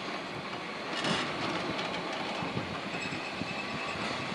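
Freight train's covered hopper wagons rolling slowly past, their wheels clattering and knocking irregularly over the rail joints, with a brief rush of noise about a second in.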